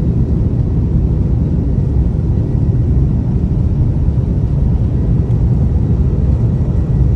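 Steady low rumble of an airliner's jet engines heard inside the cabin while the plane is on the runway for takeoff.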